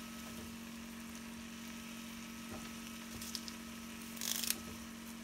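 Crab roast sizzling faintly in a pan under a steady low hum, with a couple of brief crackles about three and four seconds in as curry leaves are dropped on top.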